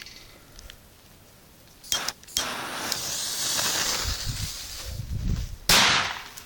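Small firecracker: a couple of clicks as the fuse is lit, the fuse hissing for about three seconds, then one sharp bang that dies away quickly.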